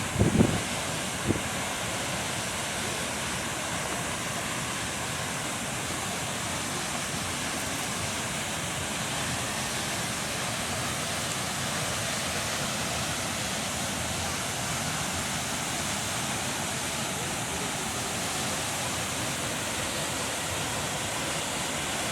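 Waterfall's steady rush of falling water, an even noise with no change. A few brief low thumps come in the first second or so.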